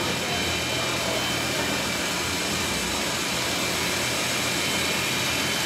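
Air rowing machine's fan flywheel spinning under continuous rowing strokes, a steady whooshing rush of air.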